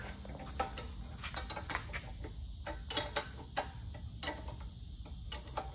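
Hand tools working the bolts of a car's front suspension: irregular sharp metal clicks and light taps, about two a second, as the control-arm and sway-bar hardware is loosened.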